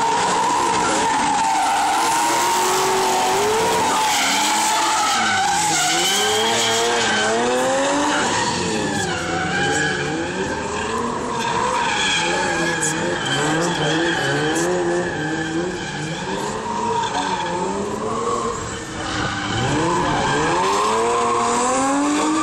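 Several drift cars sliding together, their engines revving up and down over one another, with tyres squealing on the asphalt.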